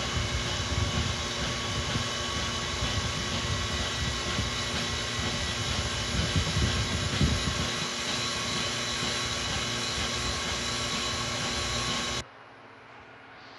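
Okamoto ACC 818 NC surface grinder running, its wheel grinding A2 tool steel parts under power feed: a steady hiss with a fixed whine. It cuts off suddenly about twelve seconds in.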